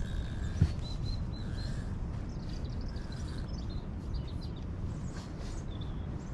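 Small birds chirping now and then over a steady low rumble of wind on the microphone, with a single knock about half a second in.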